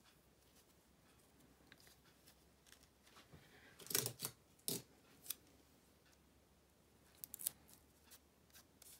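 Scissors snipping linen ribbon: a few short snips in a cluster about four seconds in and a couple more later, with light rubbing of ribbon and card between.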